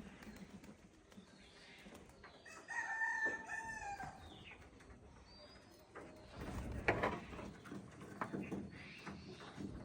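A bird's long call, about a second and a half, starting about two and a half seconds in and falling a little at its end. Later comes a dull low rumble with a sharp peak about seven seconds in.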